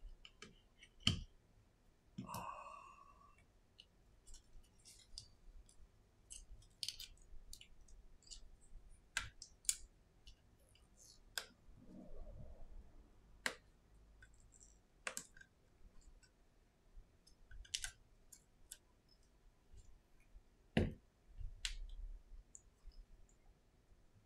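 Irregular small clicks and taps of hands and a precision screwdriver working on an opened iPhone 11, with two louder knocks, about a second in and near the end.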